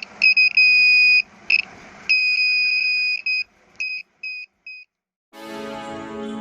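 Battery-powered buzzer of a homemade door alarm sounding one high tone in on-off bursts: a few quick beeps, two longer tones of about a second each, then three short beeps that grow fainter. Background keyboard music comes in near the end.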